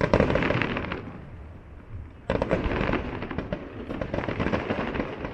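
Aerial fireworks going off: a loud burst right at the start and another about two seconds in, each followed by a dense crackle that fades away.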